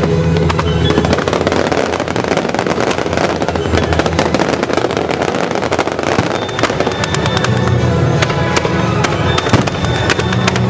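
Fireworks crackling and banging in rapid succession over loud music played for the display.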